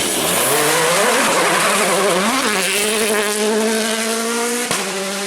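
Rally car engine revving up and down through a few changes of pitch, then holding steady high revs for about two seconds. A sharp click comes near the end.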